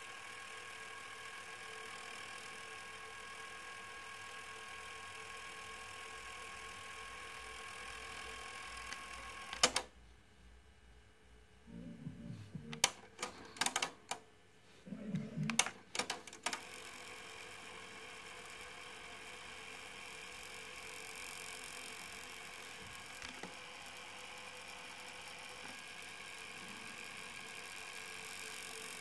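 Steady hiss from a Panasonic RD95 car audio unit with nothing playing. About ten seconds in, a sharp click cuts it off, followed by a few seconds of mechanical clicks and knocks from the unit being operated. Then the steady hiss comes back.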